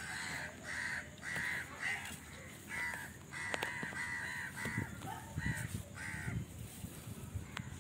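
A crow cawing over and over, about ten caws in a row that stop about six seconds in, with a few soft knocks of bricks being set into mortar underneath.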